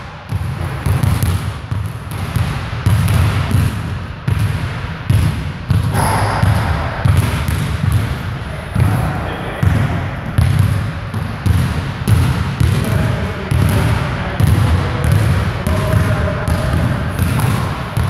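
Basketballs bouncing on a hardwood gym floor, an uneven run of thuds a few times a second from several players dribbling and shooting at once.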